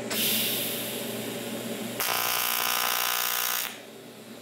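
AC TIG welding arc on aluminum, a quick tack weld. It hisses for about two seconds, then buzzes louder with the pedal floored at about 183 amps, and cuts off sharply a little before the end as the two parts fuse.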